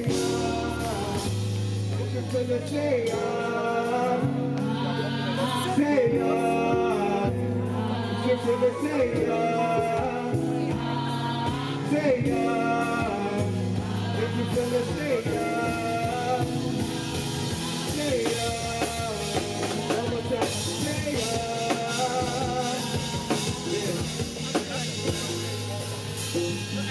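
A live band playing, with a man singing lead through a microphone. The band is drum kit, bass guitar, keyboard and congas, with sustained low bass notes under the voice.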